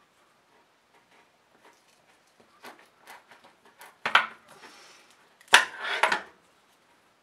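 Hands handling a roll of double-sided foam mounting tape and a knife on a tabletop: faint clicks and rustles, then two louder knocks with a scraping rasp, about four and five and a half seconds in.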